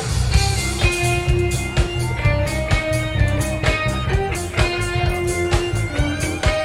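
Live band playing an instrumental passage: a lead guitar line of held notes over bass and a steady drum beat.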